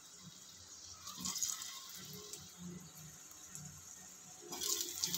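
Raw potato chunks going into hot oil in a kadai and sizzling as they fry, the hiss growing louder about a second in and again near the end as more pieces go in.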